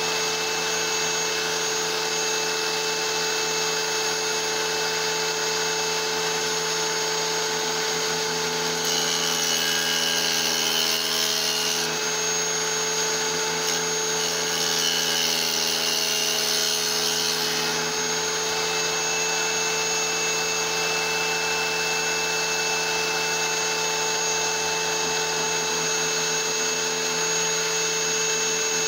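Electric tile saw running steadily as its blade grinds through a small piece of petrified wood held against it by hand. The grind shifts in tone twice, around ten and fifteen seconds in.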